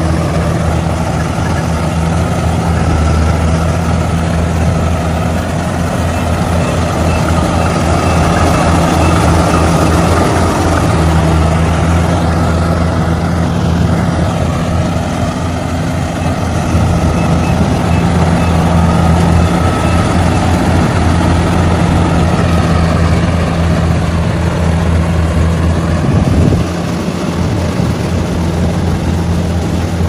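Tracked rice combine harvester's diesel engine running steadily at working speed, with the clatter of its cutting and threshing gear over a deep, even engine hum. Near the end the sound suddenly drops a little in loudness.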